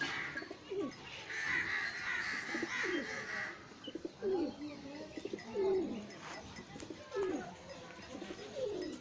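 Domestic pigeons cooing: a run of low coos that glide up and down in pitch, repeated over and over.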